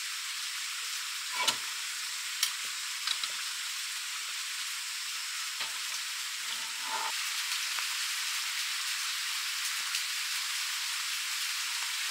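A few light clicks and taps from a metal candle lantern being handled as its door and top are opened and closed, over a steady, even hiss. The taps come in a cluster in the first few seconds and again about six to seven seconds in.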